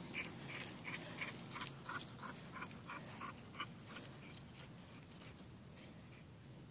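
A dog panting hard: quick, even breaths about three a second that fade out after about four seconds as it moves off. The panting goes with a dog worn out from running in the heat.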